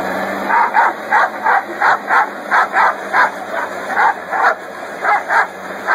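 A dog barking over and over, two or three barks a second, at the air stream of a running leaf blower, whose steady rush and low hum run underneath.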